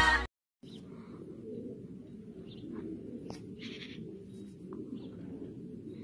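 Several domestic fancy pigeons cooing together, a steady low burbling, with a few faint higher chirps and clicks over it.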